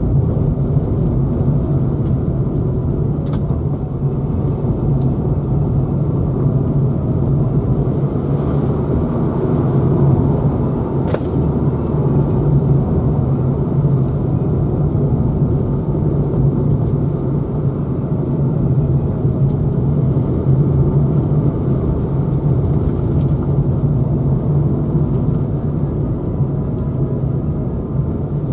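Car driving, with a steady low engine and road rumble. A single sharp click partway through.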